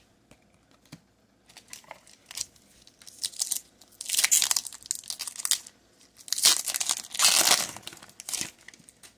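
Foil booster pack wrapper crinkling and tearing as it is pulled open by hand, in several bursts of crackling that start small about a second and a half in and are loudest from about 4 seconds on.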